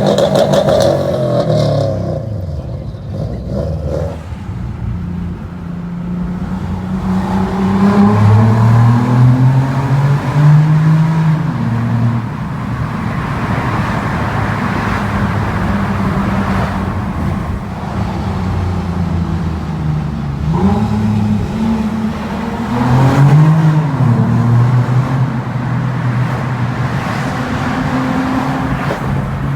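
Performance car engine and exhaust running and revving, its pitch repeatedly stepping and gliding up and down. It starts with a sudden loud burst.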